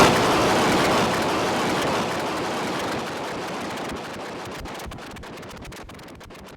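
Harsh noise from a eurorack modular synthesizer: a dense wall of noise that drops suddenly at the start, then fades down in steps and breaks up into sparse crackles and clicks near the end.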